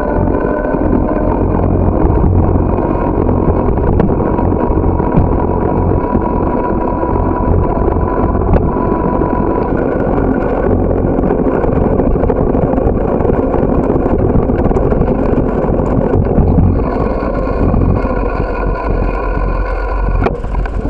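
Wind buffeting the microphone and tyre-on-asphalt noise from a moving bicycle, a steady low rumble with scattered small knocks from bumps in the road.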